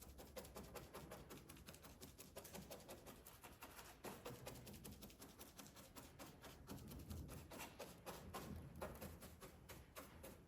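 Faint, irregular soft taps of a brush dabbing polyester resin into fiberglass mat to saturate it.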